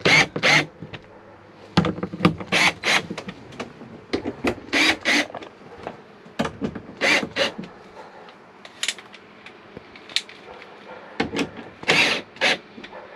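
Hand tool clicking and scraping in short irregular clusters every second or two as the mounting bolts of a rooftop RV air conditioner are snugged down a little at a time, compressing its closed-cell foam gasket to half an inch.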